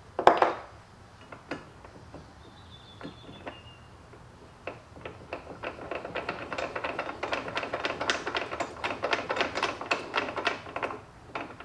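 A sharp metallic clank just after the start, a few scattered ticks, then from about five seconds in a fast run of small metallic clicks, several a second, as Allen-head screws are hand-turned into the aluminium corner bracket of a bed slide frame with an Allen wrench.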